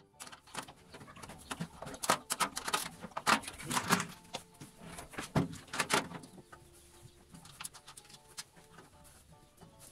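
Sharp knocks and metallic clatter of bolts, nuts and a spanner against a metal wheelbarrow tray as a bolt is fitted through it by hand. The knocks come thick and loud in the middle few seconds, then thin out.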